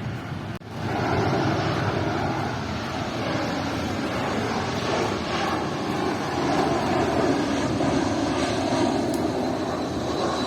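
Airliner flying low overhead, its engines making a loud, steady rush of noise that starts suddenly about half a second in.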